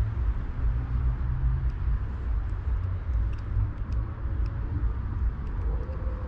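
Steady low rumble of city traffic, with faint light ticks from a spinning reel being wound in.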